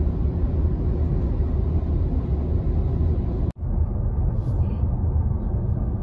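Steady low road rumble and wind noise inside a car cruising on a highway. The sound drops out for a split second about three and a half seconds in, where the recording cuts.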